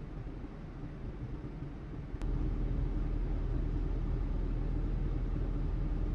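Honda Vezel's engine idling with a steady low rumble. About two seconds in there is a single click, and the rumble then gets louder and holds steady.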